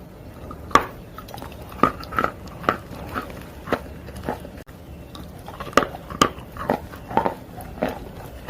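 Dry clay being bitten and chewed: a run of sharp, irregular crunches, roughly two a second, with a brief break a little past halfway.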